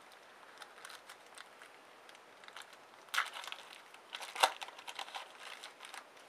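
Foil trading-card pack wrapper crinkling and crackling as a pack is torn open and handled, in two bursts about three and four and a half seconds in, with one sharp crackle in the second.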